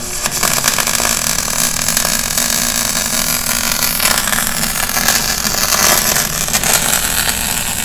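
Stick-electrode arc welding on the seam of an old shock absorber's body: a steady hissing crackle of the arc as the weld bead is laid, with a low steady hum underneath.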